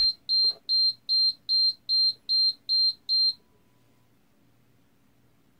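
Buzzer on a micro:bit-controlled pelican crossing model pulsing a high-pitched beep about three times a second, the crossing's 'cross now' signal; the beeping stops about three seconds in as the crossing phase ends.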